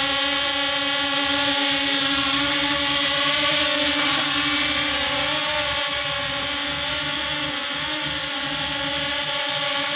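Quadcopter drone's electric motors and propellers buzzing steadily as it hovers, the pitch wavering slightly a few times as the throttle shifts.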